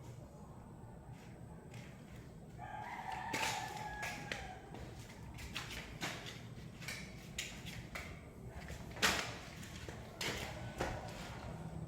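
A rooster crows once, starting about two and a half seconds in and lasting about two seconds. Scattered sharp clicks and knocks run through the rest, the loudest about nine seconds in, from mountain-bike fork parts being handled.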